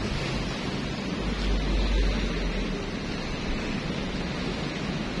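Wind buffeting the microphone, a steady rushing noise with a heavier low rumble from a gust a little over a second in.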